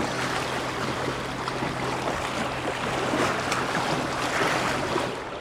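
Sea water washing and surging steadily, with wind buffeting the microphone.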